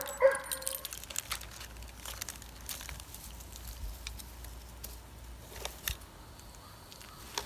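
A plastic bag crinkling as it is handled, with scattered light clicks. A dog barks once right at the start.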